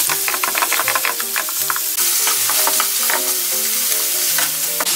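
Minced pork and sliced green onion sizzling in hot oil in a frying pan while being stir-fried, with quick clicks and scrapes of a wooden spatula and chopsticks against the pan, most frequent in the first couple of seconds. Light background music with held notes plays underneath.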